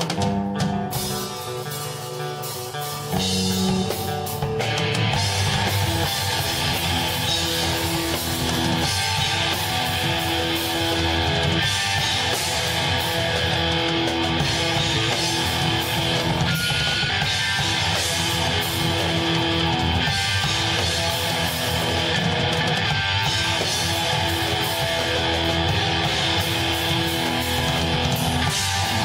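A rock band playing live, led by guitar. For the first few seconds a guitar part plays alone and is quieter; about three seconds in the band comes in louder, with heavy, dense electric guitar.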